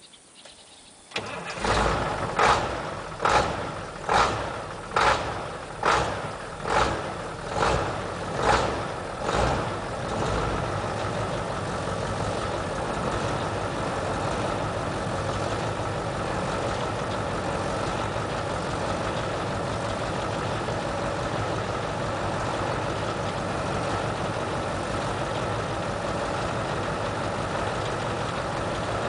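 Ford F800 truck's Caterpillar V8 diesel starting about a second in, then rising and falling in about ten even surges, roughly one a second, before settling into a steady idle.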